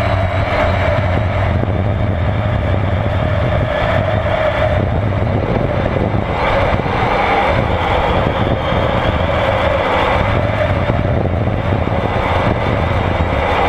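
Electric motor and propeller of a battery-powered RC model airplane running steadily, heard from on board, mixed with a noisy rush of air.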